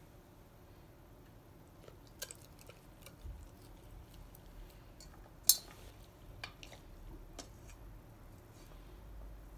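Great Pyrenees licking and chewing food from a person's hand, with faint scattered clicks and one sharp click about halfway through.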